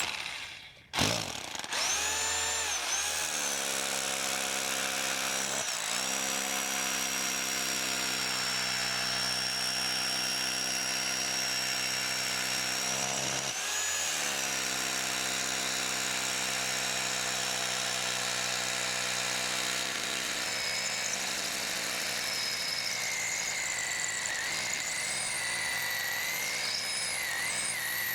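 Electric hammer drill boring a half-inch anchor bolt hole into a concrete slab: it starts up about a second in and runs steadily, dipping briefly twice as it bears into the concrete. After about 20 seconds the low motor tone fades and a higher whine goes on.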